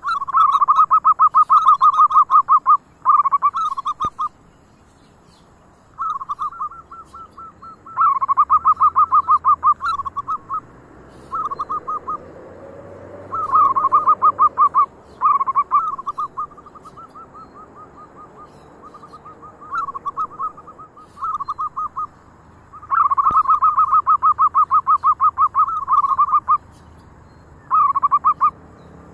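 Zebra dove (perkutut) cooing: bouts of rapid, pulsed trilling coos, some loud and long, others short and fainter, repeated every few seconds.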